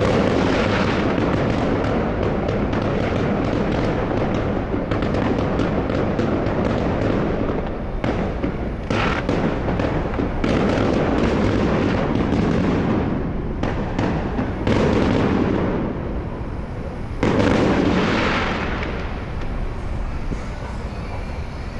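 Fireworks going off: a dense run of crackling and bangs, with sudden louder bursts about ten, fifteen and seventeen seconds in.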